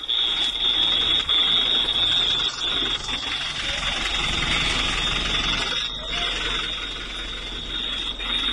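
A steady, high-pitched electronic alarm tone sounds without break over a hiss of noise.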